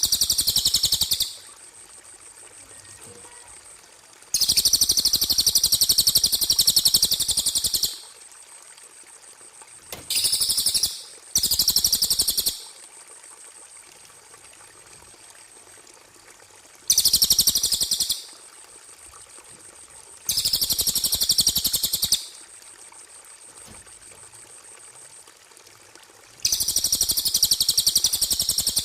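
A small songbird's recorded song: high, rapid trilling phrases, each lasting one to a few seconds, repeated seven times with pauses of a few seconds between them. A faint steady high tone sounds in the pauses.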